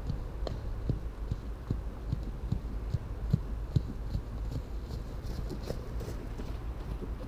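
Muffled hoofbeats of a grey Shire cross horse trotting on a soft sand arena surface, a steady rhythm of about two and a half beats a second, over a steady low rumble.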